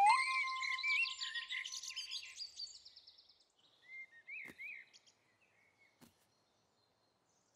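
Cartoon birdsong: a busy chorus of chirps and twitters that fades away over the first three seconds, then a few short chirps about four to five seconds in.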